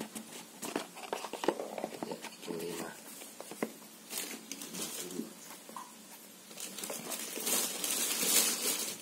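Small cardboard boxes being handled and set down on a tiled floor: scattered light taps and knocks, with a louder rustling scrape of cardboard in the last couple of seconds.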